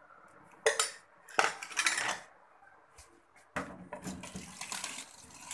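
A foil-lined oven tray clattering and scraping as it is handled and pushed into an electric oven: a sharp knock, a louder second of clanking, then a longer rattling scrape of metal and crinkling foil from about three and a half seconds in.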